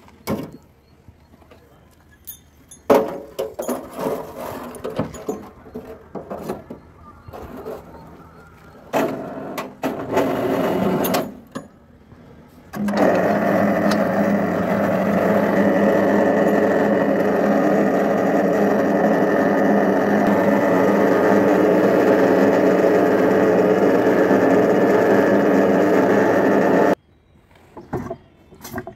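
Irregular metal clanks and rattles of chains and a steel wheelbarrow being hooked up. Then the electric mini lift's hoist motor starts, runs with a steady whir for about fourteen seconds while winding up a wheelbarrow load of M-sand, and cuts off suddenly.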